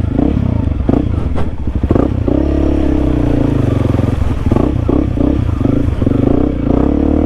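Honda CRF300L's single-cylinder four-stroke engine running at a fairly steady pitch while the bike rides through mud, with scattered knocks and clatter from the bike.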